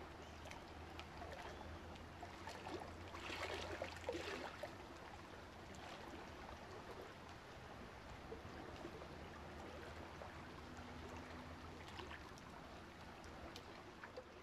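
Faint underwater ambience: a steady hiss of water with scattered small clicks and crackles over a low hum, the hum fading after about four seconds.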